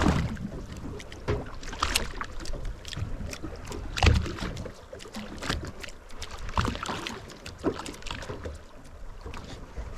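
Irregular knocks and splashy slaps on a drifting fishing boat, with water against the hull, over a low rumble. The loudest thump comes about four seconds in.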